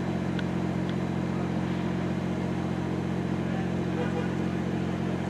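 Chesapeake & Ohio 8272 diesel locomotive idling with a steady low hum.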